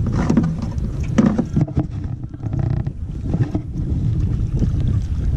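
Wind buffeting the microphone on a small fishing boat, a steady low rumble, with a few short knocks.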